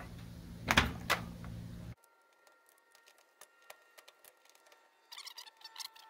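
A screwdriver backing out the T20 screws that hold a washing machine's water inlet valve assembly in place: two sharp knocks about a second in, then faint scattered ticks and a quick run of clicks near the end.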